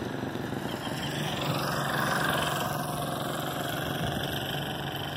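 A vehicle passing on the road, its noise swelling to a peak about two seconds in and then fading.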